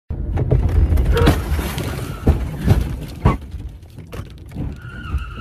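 Car crash heard from inside the car: a loud rumble with several sharp knocks and bangs as the camera is thrown about, dying down, then a high wavering tone near the end.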